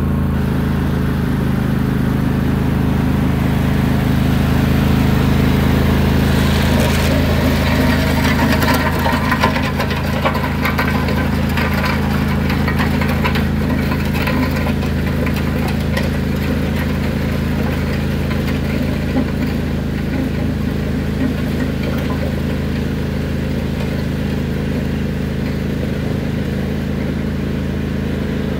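Riding lawn tractor's engine running steadily, with gravel scraping and clattering under its front blade for about ten seconds partway through.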